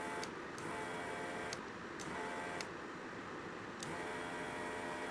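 Desoldering gun's vacuum pump switching on and off in four short bursts, each start and stop marked by a click, as the trigger is pulled to suck molten solder out of through-hole pins. The bursts are a steady hum, the last and longest about a second and a half.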